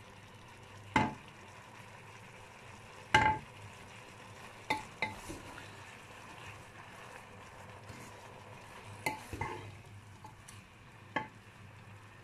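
A wooden spoon stirring julienned vegetables as they sauté in a stone-coated pot, with a faint steady sizzle. The spoon knocks sharply against the pot about seven times, loudest about a second in and about three seconds in.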